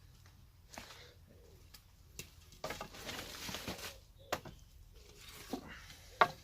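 Scattered knocks and a rustle of sticks and camp gear being handled, the sharpest knock near the end, with a bird calling in the background.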